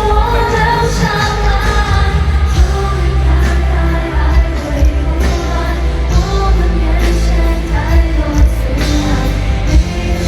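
Live pop concert music: singing over a band with heavy bass and regular drum beats, as heard from the crowd on the floor of a large venue.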